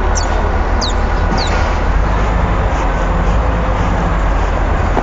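Steady low outdoor rumble, with a few short high chirps that fall in pitch in the first second and a half.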